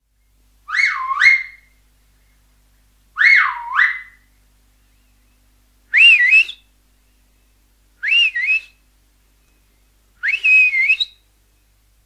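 Finger whistle blown in five short bursts, about two seconds apart. The first two swoop down and back up; the last three are higher, quicker warbles.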